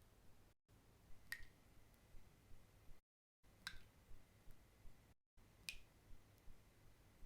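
Water drops falling one at a time: three clear plinks about two seconds apart, each with a brief ringing tone, and fainter drips between them. Twice the sound cuts to dead silence for a moment where the recording is spliced.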